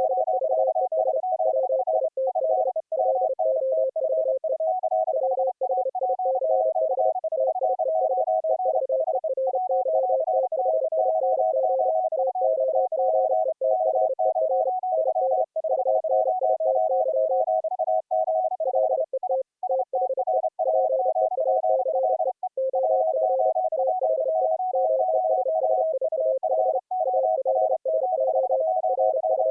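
Morse code (CW) audio tones at three slightly different pitches, each keyed on and off on its own so their dots and dashes overlap: several operators sending at the same time in full duplex.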